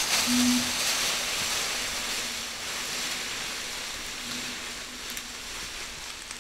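Dry fallen leaves rustling and crunching under a deer carcass being dragged and the footsteps of the man dragging it, loudest at first and fading as he moves away.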